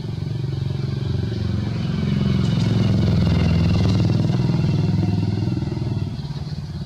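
An engine running, growing louder toward the middle and then easing off again.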